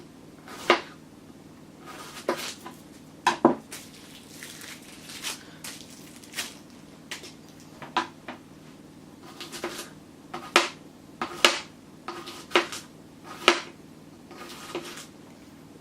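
Kitchen utensils and dishes being handled during food preparation: irregular clinks and knocks, a few louder ones about a second in, near three and a half seconds and between ten and fourteen seconds, over a steady low hum.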